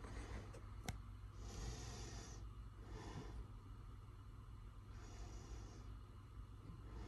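Faint, slow breathing close to the microphone, three soft breaths, with a single click about a second in over a low steady hum.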